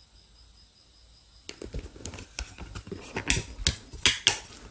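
Plastic bag rustling and crinkling as it is handled and rummaged through, with sharp irregular crackles and clicks starting about a second and a half in.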